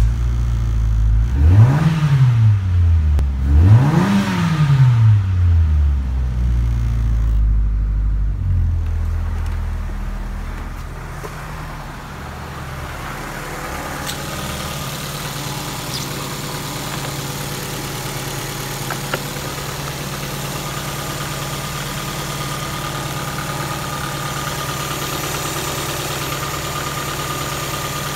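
Ford Focus 1.8-litre Zetec four-cylinder petrol engine just after start-up, blipped twice, about two and four seconds in, each time rising and falling quickly in pitch. It then settles to a steady idle with a faint whine.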